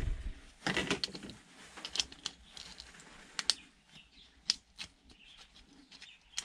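Hand tools working on a desk fan's white plastic housing: a short rustle of handling about a second in, then scattered sharp plastic clicks and ticks.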